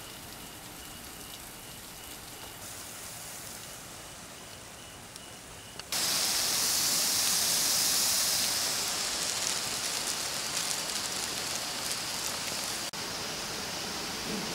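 Water jet from a hose nozzle at city water pressure: a steady hiss of spray falling on foliage. About six seconds in it cuts suddenly to a louder, brighter rush of water spraying from the nozzle close by, which steps down a little shortly before the end.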